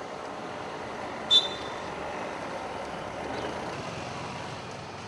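Street traffic noise along a road: a steady hum of passing vehicles, with one sharp, short high-pitched ping about a second and a half in.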